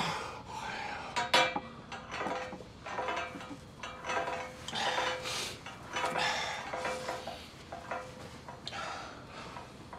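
Dishes and cutlery clinking in short irregular clatters, over faint background music.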